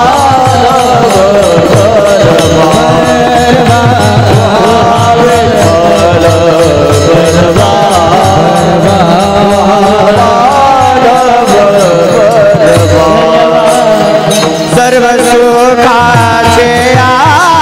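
Varkari kirtan devotional singing: a male voice sings a long, winding melody over a continuous clatter of many tal hand cymbals and the beat of a pakhawaj drum.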